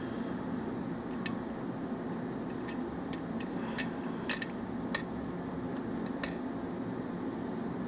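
Lock pick ticking against the pins of a pinned Russwin lock cylinder during single-pin picking: sparse, irregular faint clicks over a steady low hum.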